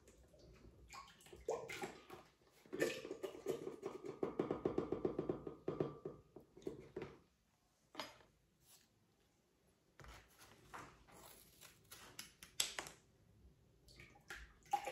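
Paper sachets of vanilla sugar and cream powder crinkling, snipped open with scissors and shaken out into a glass mixing bowl: light handling noises, with a run of rapid ticking taps against the glass for a few seconds near the start.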